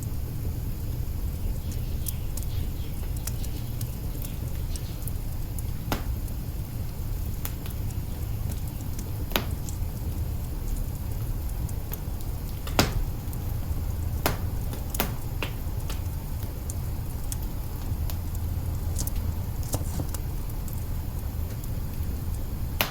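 Wood fire burning in an open kitchen hearth: irregular sharp crackles and pops, a few seconds apart, over a low steady rumble. The loudest pop comes about halfway through.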